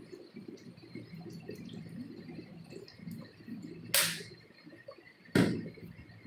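Two sharp knocks or clicks about a second and a half apart, over faint low background noise in a small room.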